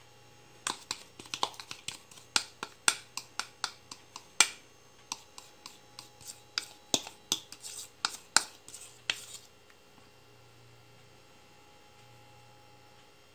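A quick, irregular run of sharp clicks and taps from a kitchen utensil knocking against the cake dish while thick condensed-milk topping is spread. The clicks start about half a second in and stop a few seconds before the end.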